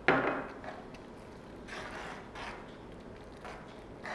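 A sharp knock at the start as a small glass bowl is set down on the counter. Then a steel ladle stirs thick dal in a stainless-steel pan, with soft scraping and a few light clinks.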